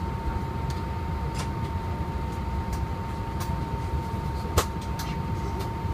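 Cabin noise in an Airbus A319 taxiing on IAE V2500 engines: a steady low rumble with a constant high hum over it. There are a few light clicks and one sharper knock a little past halfway.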